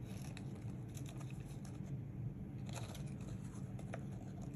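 Faint rustling and light taps of paper flowers and leaves being handled and shifted on a canvas, over a steady low hum.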